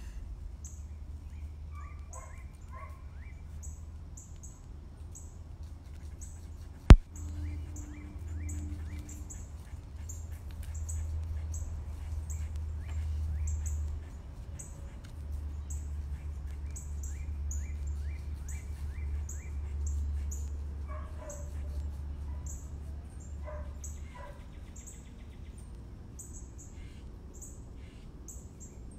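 Birds chirping, with short high chirps repeating two or three times a second and a few falling calls among them. A sharp, loud click comes about seven seconds in, and a low rumble runs underneath.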